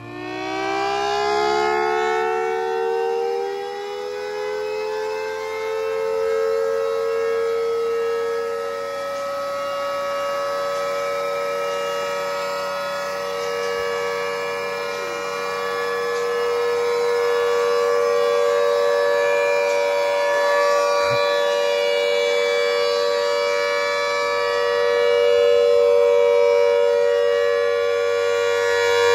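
Mini 3D-printed replica of a Federal Signal Thunderbolt 1003 tornado siren winding up over the first few seconds to a steady wail and holding its pitch, its loudness swelling and fading slightly as the rotator turns the horn.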